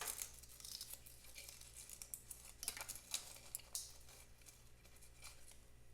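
Faint, irregular clicks, light scrapes and rustling from hands handling parts while taking off a motorcycle's headlight assembly, over a steady low hum.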